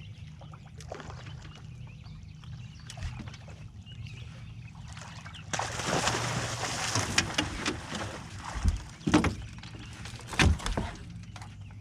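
Boat motor running steadily under a hooked blue catfish being landed beside the boat: about halfway through, a couple of seconds of heavy splashing, followed by several loud thumps against the boat.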